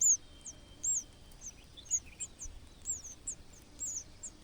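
A small bird chirping at a nest: short, high-pitched notes, each rising and falling, repeated about twice a second.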